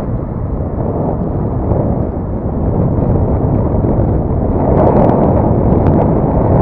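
Wind rushing over the microphone of a camera on a moving bicycle: a steady low buffeting noise that grows louder about halfway through, with a few faint clicks near the end.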